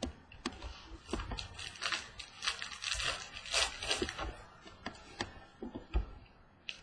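Trading card pack wrapper being torn open and crinkled, with cards rustling and clicking as they are handled.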